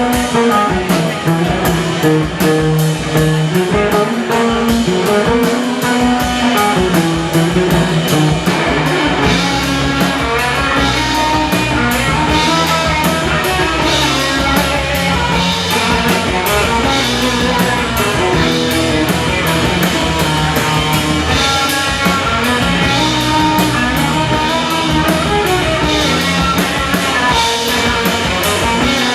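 Instrumental rock music: a string lead line over bass and a drum kit keeping a steady beat, with no singing.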